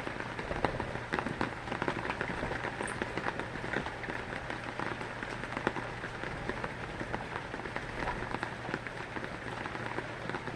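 Heavy rain falling steadily, with many individual drops ticking on a nearby surface, over a low steady hum.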